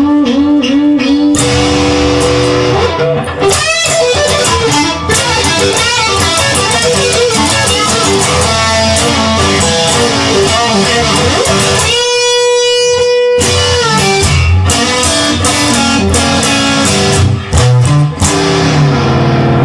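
Instrumental passage of a song led by electric guitar, with one long held guitar note a little past the middle while the bass briefly drops out.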